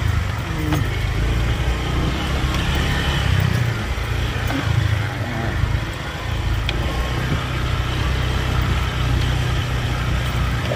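A motor vehicle driving: steady engine rumble and road noise, with a few faint knocks.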